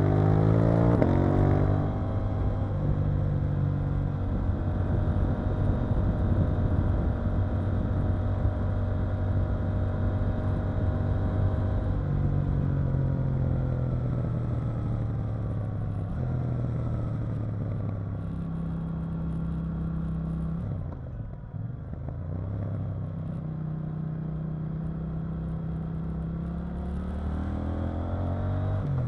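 KTM 890 Duke R's parallel-twin engine heard onboard while riding, revving up at the start and then running at fairly steady revs with gentle rises and falls. About three-quarters through it eases off briefly, the pitch dropping, then picks up and climbs again near the end.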